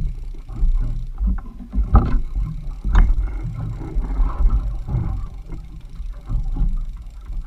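Waves slapping against a small boat's hull, with a low, uneven rumble, and two sharper knocks about two and three seconds in.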